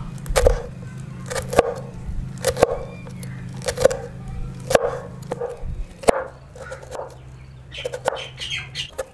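A large kitchen knife chopping green chillies on a wooden cutting board: sharp knocks about once a second, over a steady low hum. Near the end the knife slices through a red onion.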